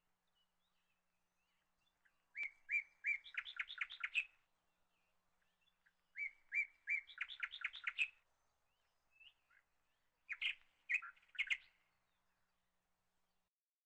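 A small songbird singing three short phrases about four seconds apart, each a few separate chirps running into a quick trill; the first two phrases are alike.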